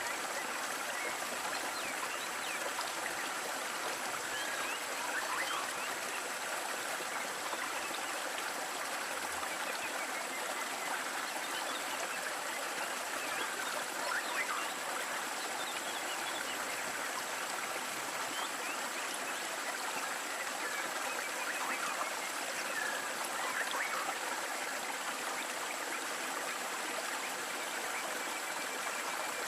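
Steady rush and splash of falling water from a small waterfall, even in level throughout.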